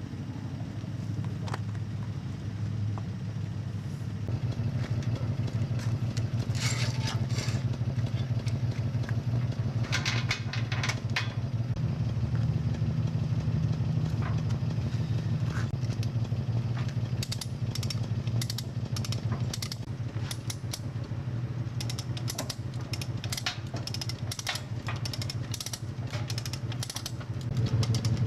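A vehicle engine idling steadily, with metallic clinks and rattles of tow-dolly hardware being handled: in clusters about 6 and 10 seconds in, and often from about 17 seconds on.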